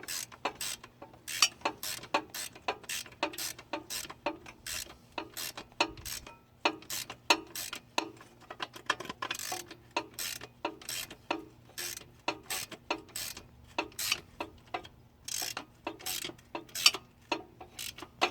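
Hand ratchet wrench clicking in short, uneven strokes, a few clicks a second, as a steel bolt is turned in a small engine's aluminium cylinder head.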